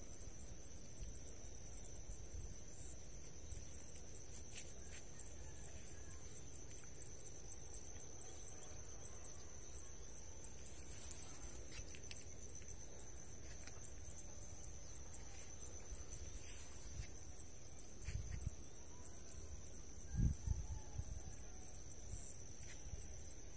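Insects chirring steadily, a high-pitched drone of two unbroken tones over a low rumble, with two brief soft thumps near the end.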